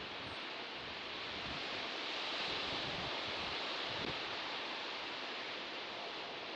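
Sea surf washing on the shore: a steady hiss of waves that swells a little partway through and then eases off.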